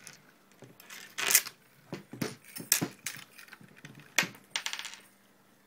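A light metal chain clinking and jingling as it is handled and hooked on, in several short rattles, the loudest about a second in and again about four seconds in.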